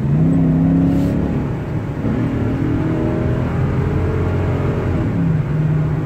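Ford F-250 gasoline V8 accelerating hard at wide open throttle, heard from inside the cab: the revs climb, drop at an upshift about a second and a half in, climb again, then ease off near the end. The engine pulls cleanly with no misfire, following a misfire monitor neutral profile correction.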